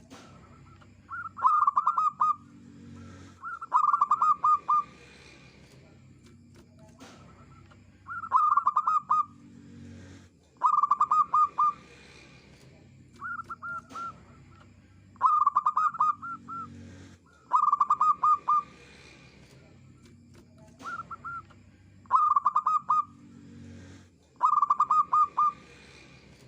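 Zebra dove singing: about ten short phrases, each a quick run of staccato cooing notes, repeated every two to three seconds.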